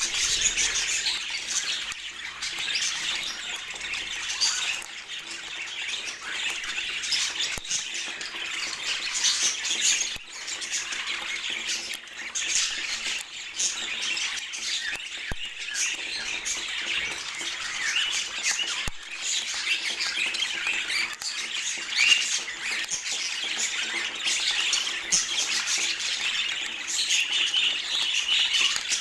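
Several budgerigars chattering and warbling without a break, a busy mix of high chirps and squawks.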